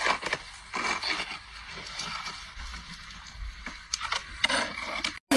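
Snow shovel scraping and crunching through snow in irregular strokes as it is dragged along.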